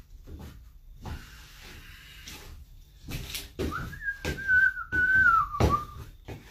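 Boots stepping on a wooden floor, coming closer, with a person whistling one wavering note for about two seconds midway that drops in pitch at the end.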